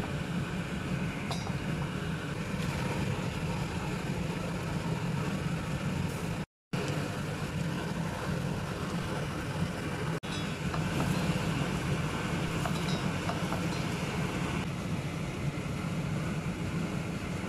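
Steady stovetop cooking noise: a wok of chicken in red chilli sauce simmering over the burner, with a low hum and now and then a light clink of a metal spatula against the pan. The sound cuts out for a moment about six and a half seconds in.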